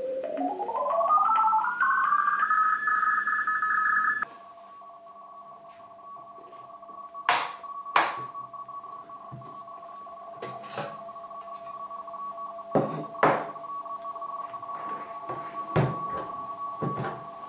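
Homebrew shortwave receiver's audio output: a whistle rises steadily in pitch as the set is tuned, holds, then cuts off suddenly about four seconds in. Quieter steady tones follow, with a scattering of sharp clicks and knocks.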